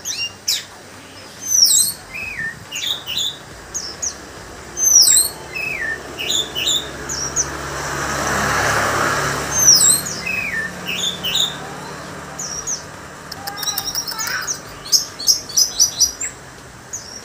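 Orange-headed thrush (anis merah) singing: a loud, continuous string of sharp, sweeping whistled notes and phrases, ending in a fast run of quickly repeated notes. A swell of background noise rises and fades about halfway through.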